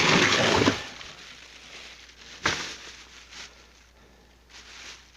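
Plastic bags of frozen food crinkling as they are handled, loudest in the first second. Then a single sharp knock about two and a half seconds in, and faint rustling.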